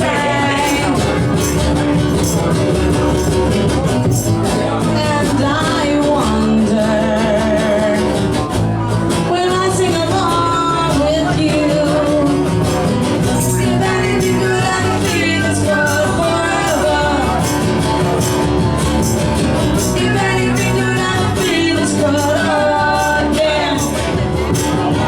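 Rock band playing live with a lead singer, drums and bass steady underneath.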